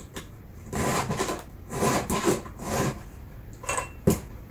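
Round file rasping across the cutter teeth of a chainsaw chain, several hand strokes about a second apart, with one sharp click near the end.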